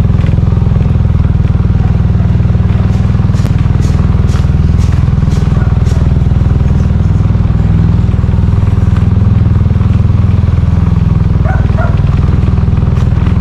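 Small motorcycle engine running steadily at low speed while riding, with a quick run of light clicks a few seconds in.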